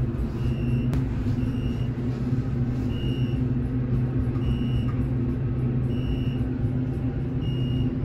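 Elevator cab running with a steady low hum, while short, high electronic beeps of one pitch sound every one to two seconds.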